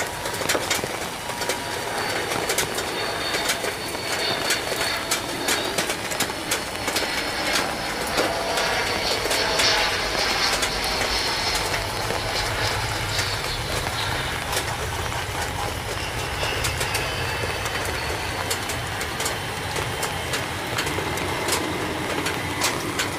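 Jet engines of a twin-engine Sukhoi Flanker fighter passing on landing. A high whine swells to its loudest near the middle and then fades, and a low rumble comes in as it rolls along the runway. Sharp clicks run throughout.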